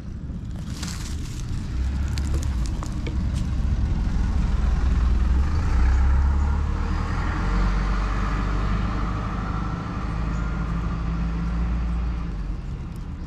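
A road vehicle passing nearby: a low rumble with a higher hiss over it that swells to its loudest about halfway through and then fades. A few light clicks and rustles come in the first few seconds.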